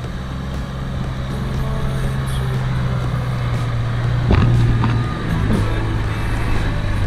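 Toyota 80 Series Land Cruiser's engine running as the 4WD crawls over a rutted mud track toward the listener, growing louder as it nears. There is a sharp thump about four seconds in.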